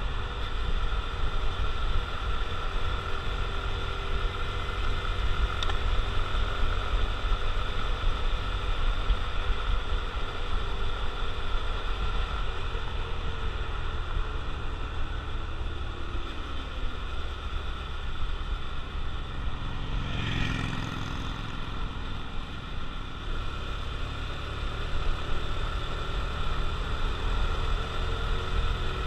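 Honda CT125 Trail Hunter Cub's single-cylinder four-stroke engine running steadily under way, with wind rumble on the handlebar-mounted microphone. A brief louder rush comes about two-thirds of the way through.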